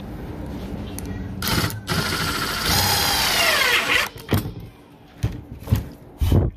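Cordless drill driving a screw through a rubber anti-skid pad into a wooden cutting board. The drill runs hard for about two and a half seconds and winds down with a falling whine, then a few sharp knocks follow as the drill and board are handled.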